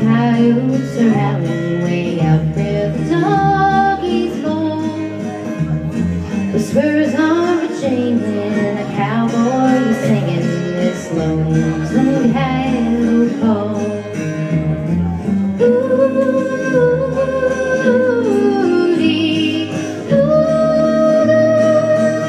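Country song: a singer over plucked guitar and a bass line, with long held notes in the second half.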